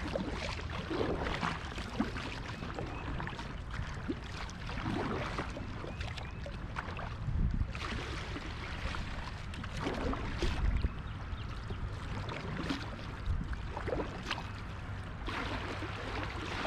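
Kayak paddle strokes in river water: the blades splash and drip every second or two over a steady low rumble and the wash of moving water.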